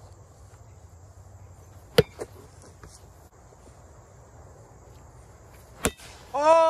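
A paddle bat hitting a pitched ball: one sharp crack shortly before the end. About two seconds in there is an earlier, louder sharp click with a fainter one right after it.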